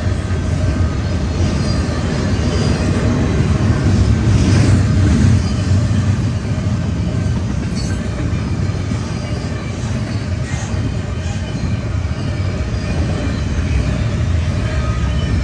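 Intermodal freight train cars rolling past at speed: a steady rumble of steel wheels on rail, swelling a little about four seconds in.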